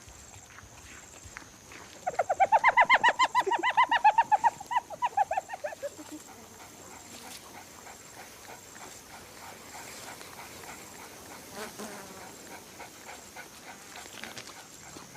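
A wild animal gives a rapid run of high, yelping calls, about seven a second, starting about two seconds in and fading out over roughly four seconds.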